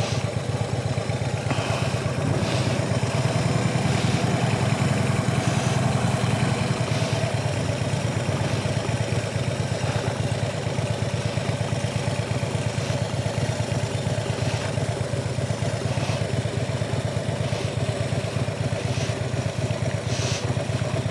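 Harley-Davidson Street Glide Special's V-twin engine running steadily near idle while the bike creeps forward at walking pace, clutch held in the friction zone.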